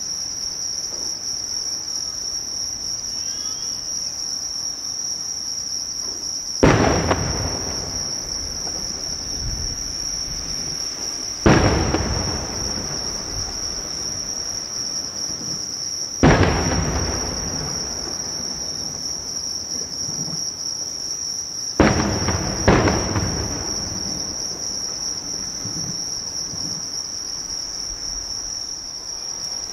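Aerial firework shells bursting: five sudden booms a few seconds apart, the last two in quick succession, each followed by a long echoing tail. A steady high insect chorus of crickets chirring underneath.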